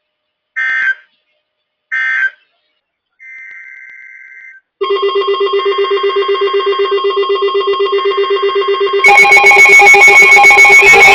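Two short bursts of NOAA Weather Radio SAME data tones, the end-of-message code closing the warning. A faint steady tone follows. Then, about five seconds in, a weather alert radio's electronic alarm starts pulsing rapidly, and just after nine seconds a second, louder and buzzier receiver alarm joins it.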